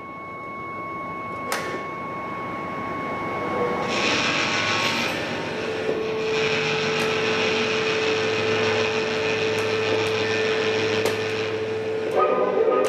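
Improvised noise music: a held high tone gives way about four seconds in to a hissing wash of noise over a steady sustained tone and a low hum, with a few clicks.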